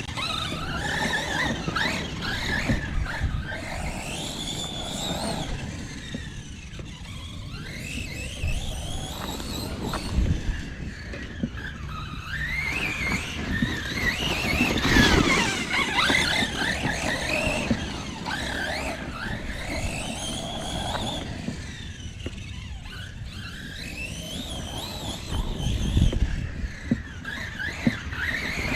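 Redcat Kaiju EXT electric RC truck's brushless motor and drivetrain whining, the pitch repeatedly rising and falling as it is throttled up and down through a course.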